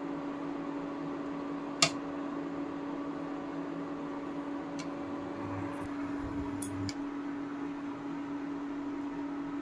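Steady mechanical hum with a constant low tone, and a sharp clink of a metal spoon against steel about two seconds in, followed by a couple of fainter clicks.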